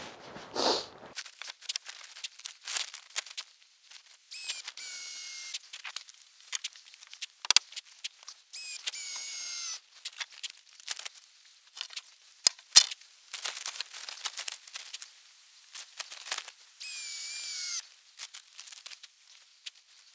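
A tarp rustling and scraping in several stretches of a second or two as it is handled and stepped on, with many small clicks and a few sharp knocks.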